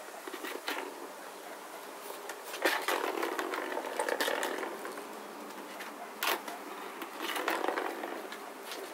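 A small plastic ball rattling as it rolls around the track of a plastic circular cat track toy while a cat bats at it, in two longer runs with a sharp click about six seconds in.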